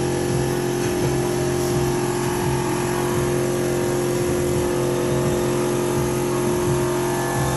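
Steady motor drone of workshop machinery running, an even hum with several held tones and no change in level.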